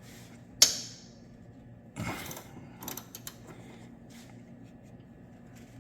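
Ratchet socket wrench on a stuck motor mount bolt: a sharp metallic click about half a second in, a short rasping clatter about two seconds in, then a few light ratchet clicks. The bolt is too tight to come loose, and a steady low hum runs underneath.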